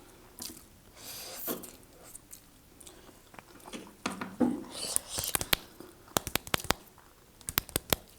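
Close-miked mukbang eating: chewing and biting food, with soft mouth noises early on and then quick runs of sharp, crisp crunching clicks from about four seconds in, thickest around six to seven seconds and again near the end.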